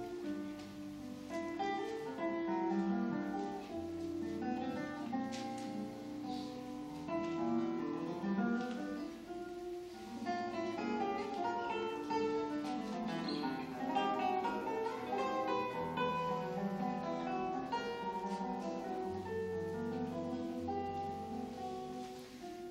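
Solo classical guitar played fingerstyle: a quick, continuous flow of plucked notes over deeper held bass notes.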